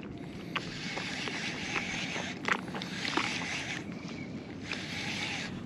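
Choppy shallow bay water lapping and sloshing around a wading angler, with a few light clicks.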